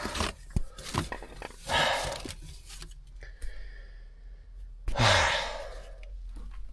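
A man sighing heavily in frustration, twice: about two seconds in and again about five seconds in. Scattered light clicks and knocks run between the sighs.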